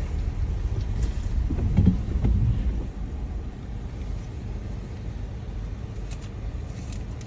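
Car running at low speed or idling, heard from inside the cabin as a steady low rumble that swells a little about two seconds in.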